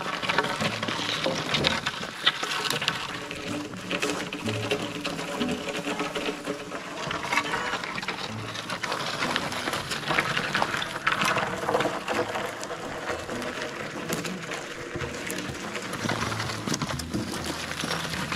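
Background music with a fast, busy rhythm.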